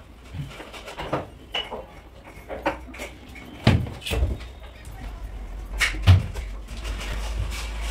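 Teak-veneered wooden wall-cupboard doors being swung on their hinges and knocked shut against the cabinet frame: a run of sharp wooden knocks, two close pairs standing out, the loudest about six seconds in.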